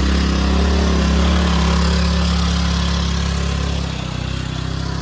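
Boat engine running with a steady low note, loud at first and easing down about four seconds in.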